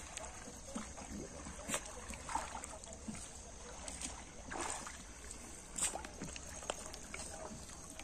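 Feet sloshing and squelching through shallow river water and soft mud, with scattered small splashes as a wet cast net is handled.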